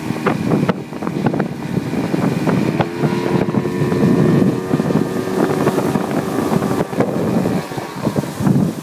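Outboard motor running at speed while towing a water skier, under a dense rush of wind buffeting the microphone and churning wake. A steady engine whine comes through more clearly in the middle.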